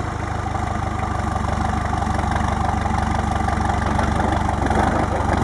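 Toyota Land Cruiser BJ60's diesel engine running steadily, growing slightly louder about two seconds in.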